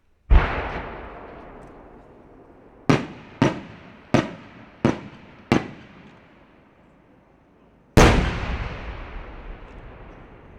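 Japanese aerial firework shells bursting overhead. A heavy boom comes just after the start, then five sharper bangs in quick succession about three to five and a half seconds in, then another heavy boom near the end. Each fades away in a long echoing tail.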